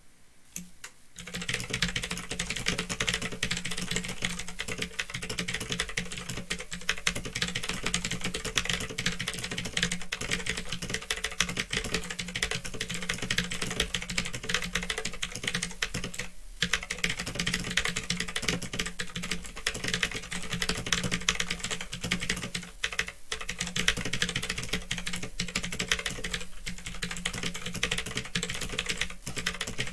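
Continuous fast typing on a Phantom Tecware 87 mechanical keyboard with clicky Otemu blue switches, a dense run of key clicks that starts about a second in and breaks off briefly twice.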